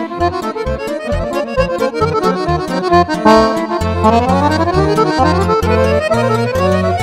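Accordions playing fast Romanian lăutărească party music, with quick runs that climb up the scale again and again in the second half.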